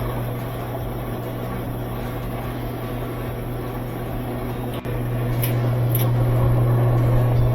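Estate top-load washing machine running its spin cycle with the lid switch bypassed: a steady motor hum, a single sharp click about halfway through, then the hum slowly grows louder as the drum picks up speed.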